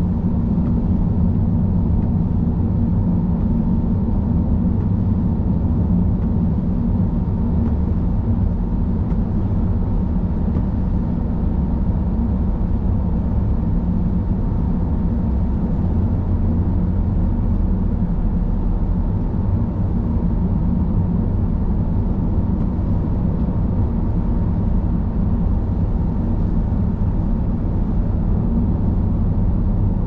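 Car driving at a steady pace: a constant rumble of tyres on the road and engine hum, with a faint steady high tone running through it.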